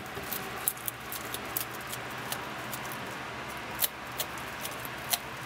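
A bearded dragon crunching a Dubia roach in its jaws: irregular small crunches and clicks, with two louder ones about four and five seconds in, over a steady hiss.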